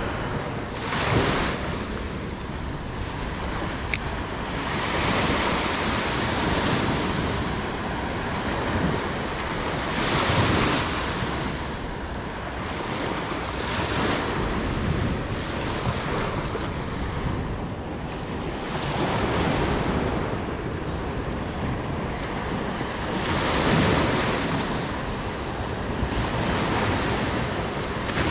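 Small waves of shorebreak washing up a sandy beach, swelling every four to five seconds, with wind buffeting the microphone.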